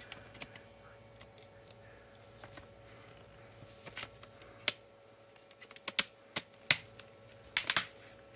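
Scattered sharp clicks and taps of small laptop parts being handled and fitted back into place, sparse at first and then a quick cluster near the end.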